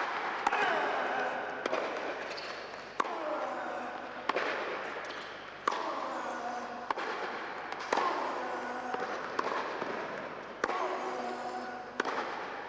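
A tennis rally on an indoor hardcourt: racket strikes on the ball trade back and forth about every 1.3 seconds, around ten hits in all. Each crack echoes through the hall and is followed by a short falling ringing tone.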